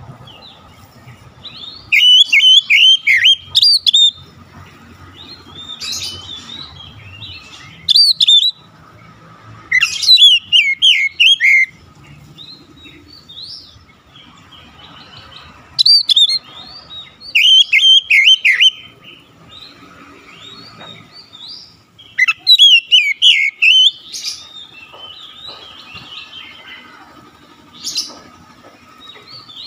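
Oriental magpie-robin singing: loud phrases of rapid, sweeping whistled notes, each lasting one to two seconds and coming again every few seconds, with softer calls in the gaps between.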